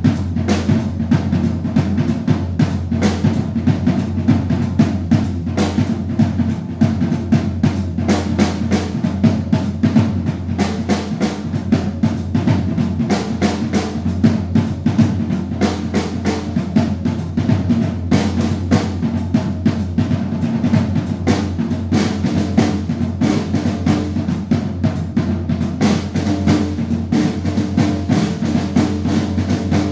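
Acoustic drum kit played as a solo: a continuous stream of fast strokes on the drums and cymbals, with no pause.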